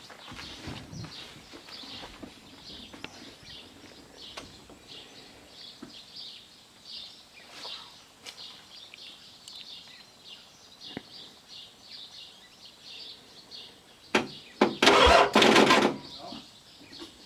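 Birds chirping steadily in the background. About fourteen seconds in there is a click, then a loud, harsh noise lasting about a second and a half.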